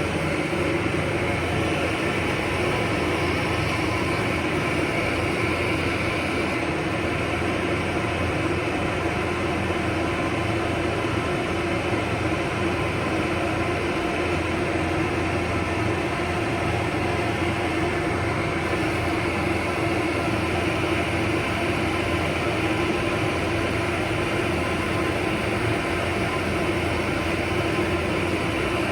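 Hair dryer blowing steadily, a continuous even rush of air with a low motor hum underneath, drying a dog's coat.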